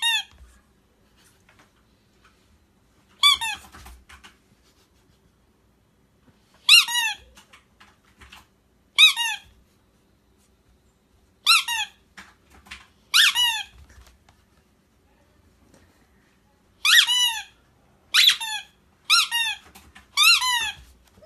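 Rubber squeaky toy squeezed over and over: about ten short, high squeaks, each sliding down in pitch, spaced unevenly with pauses between them and coming closer together near the end.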